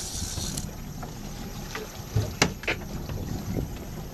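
Steady low rumble of a charter boat's engine running, with a few sharp knocks or clicks on board, the loudest about two and a half seconds in.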